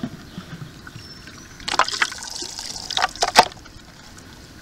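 Water and wet leaf debris trickling and spilling as the inner strainer is pulled out of a full Zodiac Cyclonic Leaf Catcher pool-cleaner canister. The spilling comes with a few sharp plastic knocks, a pair about two seconds in and three more about a second later, the last the loudest.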